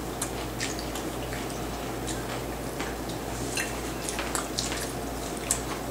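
Eating sounds at a table: faint scattered clicks and small wet ticks of chewing and food being handled, over a steady low hum.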